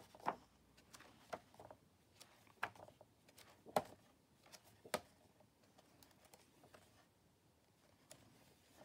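Pages of a large hardcover book being turned by hand: soft paper flicks and rustles, about one a second for the first five seconds, then fainter.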